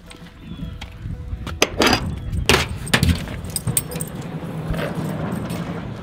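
Metal jingling and clinking, with a run of sharp clinks between about one and a half and four seconds in, over low handling or footstep rumble.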